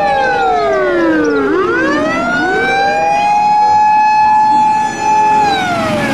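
Fire engine siren wailing: a long high tone slides down, rises back, holds, and slides down again near the end, with a second overlapping siren tone trailing slightly behind.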